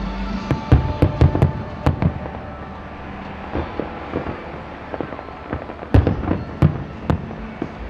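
Aerial fireworks shells bursting: a rapid cluster of sharp bangs in the first two seconds, smaller pops through the middle, then a few more loud bangs near the end.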